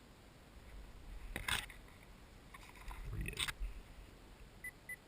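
Two short bursts of rustling and handling noise, then a couple of short high electronic beeps near the end.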